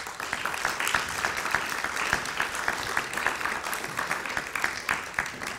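Applause from an audience and the panel: many hands clapping densely and steadily, easing off near the end.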